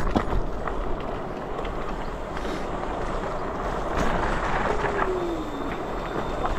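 Wind and road noise from riding an electric scooter, a steady rush, with a short falling whine about five seconds in.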